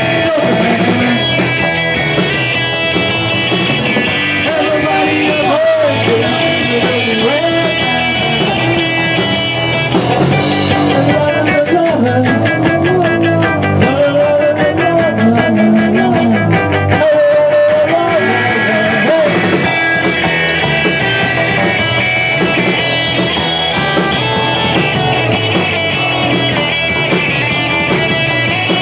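Live rock band playing loud, with electric guitars, bass guitar and drum kit, and a male vocalist singing over them. The singing drops out about two-thirds of the way through, leaving the band playing on.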